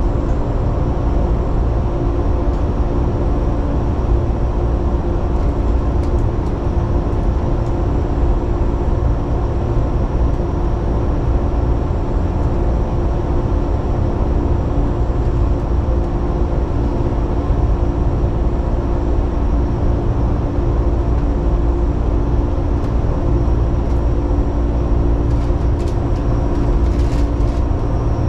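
Steady hum of a stationary Sanyo Electric Railway electric train's onboard equipment while it waits at a station. A few steady tones sit over a low rumble, with no change in pitch or level.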